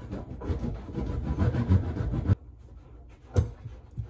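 Power drill running into cabinet wood for about two seconds, the bit grinding and failing to bite, then stopping suddenly; a single sharp knock follows about a second later.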